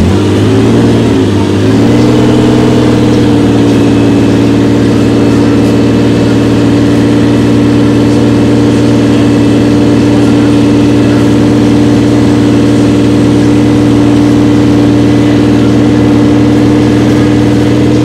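Ferrari 365 GTB/4 Daytona's 4.4-litre V12 running on a standing car: the revs rise and fall briefly in the first few seconds, then it settles into a steady, even idle.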